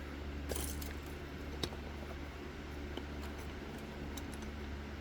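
Small metallic clicks and light scraping from the picking tools in an Ace Hardware disc padlock as its core is turned toward open, with one sharp click about a second and a half in, over a steady low hum.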